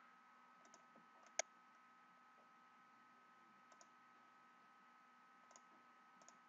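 Faint computer mouse clicks over near silence: one sharper click about a second and a half in, then a few quiet clicks, some in pairs.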